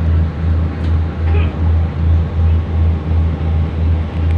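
Loud music with a heavy, evenly pulsing bass beat, about three beats a second, over a steady background hum.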